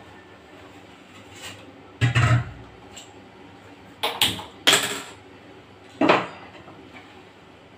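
Stainless steel pots and utensils clattering as they are handled and set down on a gas stove: a knock with a dull thud about two seconds in, then a few sharper metal clanks between four and six seconds.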